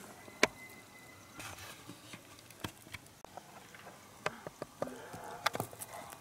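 Scattered sharp clicks and light rustling of camera-handling noise, the loudest click about half a second in. Faint, distant Tule elk calls: a thin high whistle just after that click and higher tones near the end.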